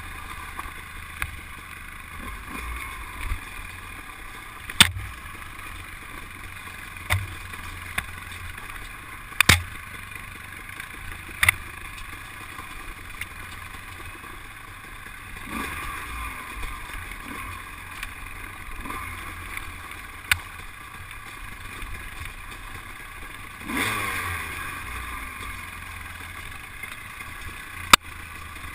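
Dirt bike engine running steadily as the bike rides a rough dirt trail, with the revs dropping in falling glides a few times in the second half. Several sharp knocks come from the bike jolting over bumps.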